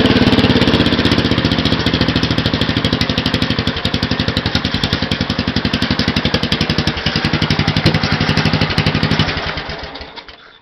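Racing lawn mower engine running through a short open header pipe, a loud, fast, even firing beat. About nine seconds in it is shut off and winds down to a stop.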